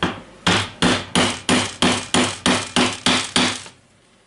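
About eleven hammer blows, roughly three a second, driving a new ball bearing further onto an angle grinder's armature shaft. Each blow is a sharp metallic knock with a short ring. They stop near the end.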